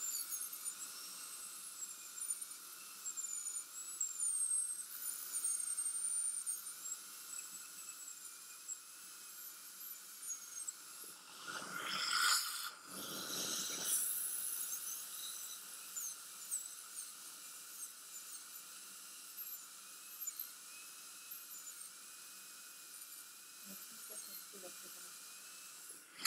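High-speed dental handpiece with a bur cutting tooth enamel: a steady high whine whose pitch wavers as the bur bears on the tooth, with two loud rushing bursts around the middle.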